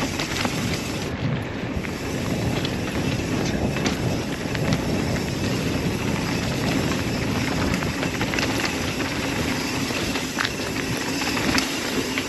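NS Eccentric hardtail mountain bike riding a dirt trail at speed: a steady rush of wind on the microphone and tyres rolling over dirt, with scattered clicks and rattles from the bike.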